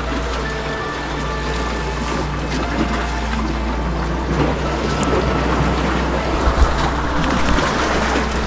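Sea waves washing against a rocky breakwater, with steady wind noise rumbling on the microphone.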